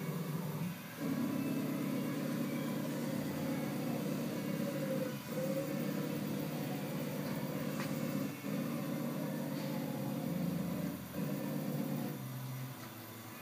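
Omni Turn GT-75 CNC gang tool lathe running, its slides moving the gang tool plate: a steady low motor drone that breaks off and changes pitch every few seconds as moves start and stop. A sharp click sounds about 8 seconds in.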